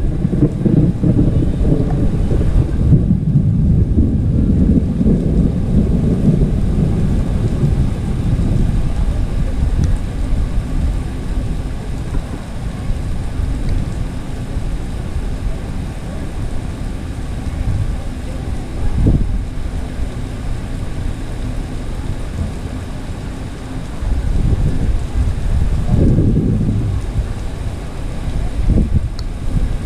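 Heavy rain pouring down onto wet paving, a steady hiss, with wind buffeting the microphone in low rumbles that swell a few times, most strongly a little over three quarters of the way through.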